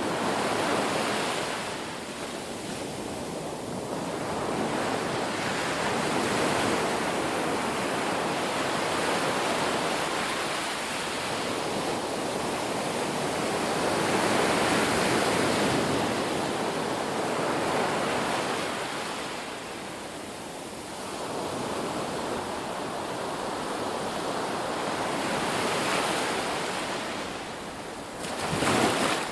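Sea waves breaking and washing in, the surf swelling and falling back in slow surges every several seconds, with a sharper surge just before the end.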